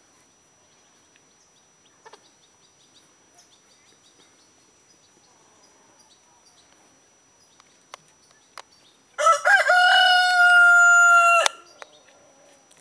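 Rooster crowing once near the end, a single cock-a-doodle-doo of a little over two seconds whose last note is held steady and then cut off. Before it only faint twittering of small birds and a couple of sharp clicks.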